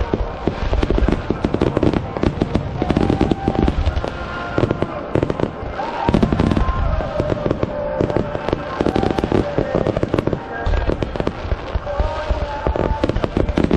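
Fireworks display: a dense, continuous barrage of aerial shells and low-level shells bursting, with bangs following one another many times a second throughout.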